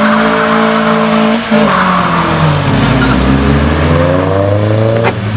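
Car engines revving hard as cars accelerate away, the engine note held high, dropping sharply about a second and a half in, then climbing steadily again; tyres squeal faintly underneath.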